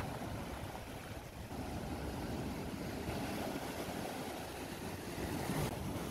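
Steady rushing noise of sea waves with wind buffeting the microphone.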